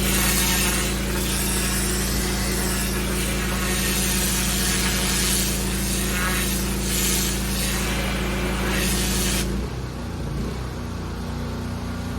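Petrol pressure washer engine running steadily under load while the high-pressure water spray hisses against paving. A little over three-quarters of the way through the spray cuts off and the engine note changes as it runs on unloaded.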